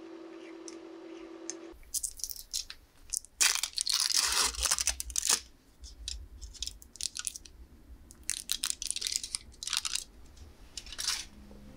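Foil wrappers of individually wrapped cream cheese portions crinkling and tearing in several bursts as they are peeled off, loudest a couple of seconds in. A steady low hum before it stops at a cut about two seconds in.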